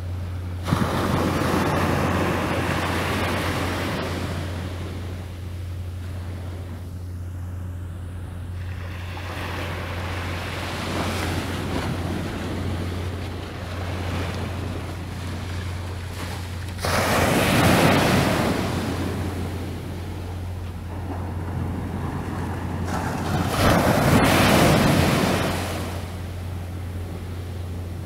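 Sea waves washing against the shore, with three louder surges: one right at the start, one about two-thirds through and one near the end. Wind buffets the microphone, and a steady low hum runs underneath.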